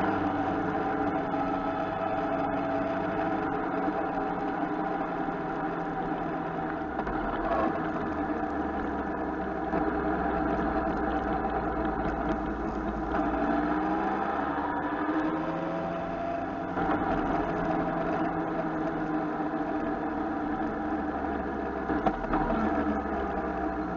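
Motorcycle engine running at road speed under steady wind noise on a handlebar-mounted camera. The engine pitch dips and climbs again about halfway through.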